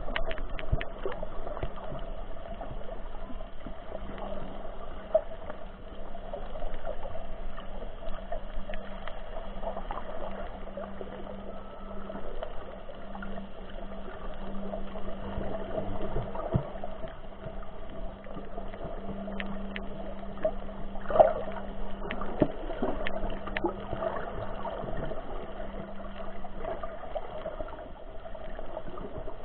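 Muffled underwater ambience: a steady wash of water noise with a constant low hum, scattered small clicks and one louder knock about two-thirds of the way through.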